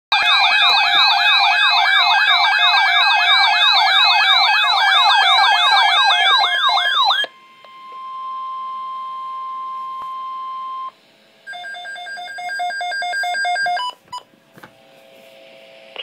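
Several weather alert radios sounding their alarms together: loud overlapping electronic warbles, about three sweeps a second, that cut off suddenly after about seven seconds. Then a steady single-pitched alert tone near 1 kHz, the weather radio warning tone, holds for about three and a half seconds, followed by a few seconds of rapid electronic beeping.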